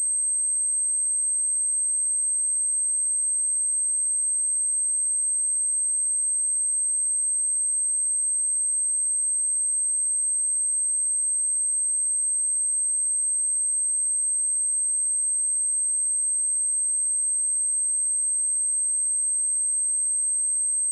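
A single pure 8306 Hz sine-wave test tone, a steady high-pitched whistle held at a constant level without a break.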